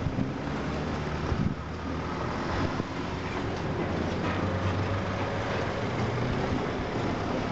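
Diesel locomotive engine running with a steady low drone.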